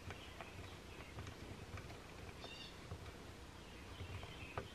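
Faint clicks of a screwdriver turning a small screw into a metal plate on a rifle barrel, with a few short, faint high-pitched chirps about midway and near the end.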